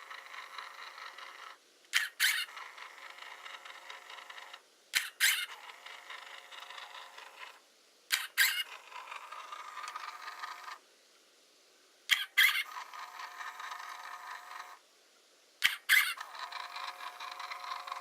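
Hasselblad Winder CW cycling the camera about five times. Each cycle is a sharp double click as the camera fires, then the winder motor runs for about two and a half seconds with a squeal, the squeak that marks the winder as needing lubrication.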